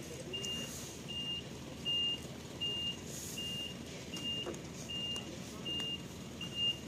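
A vehicle's reversing alarm beeping steadily: a short, high single-tone beep about every three-quarters of a second, over low background noise.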